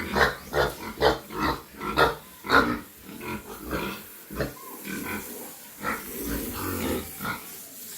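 Pigs grunting: a quick run of several grunts a second, then fewer and quieter grunts about three seconds in.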